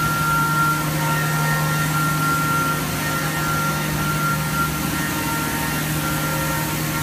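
1995 Niigata SPN50 horizontal machining center powered up and idling, its auxiliary motors giving a steady hum: a low drone with a thin high whine over it.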